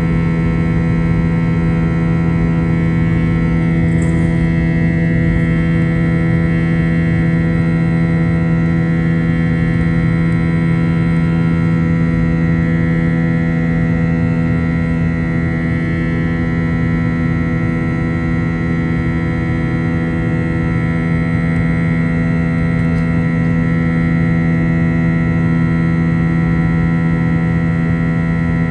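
Airliner cabin drone of an Airbus A321-231's IAE V2500 turbofans at climb power shortly after takeoff: a steady hum made of several held tones over an even rush of airflow noise.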